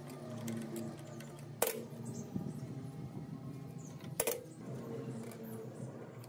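Two sharp metal clinks, each with a short ring, about two and a half seconds apart, as metal engine parts are knocked together or set down, over a steady low hum.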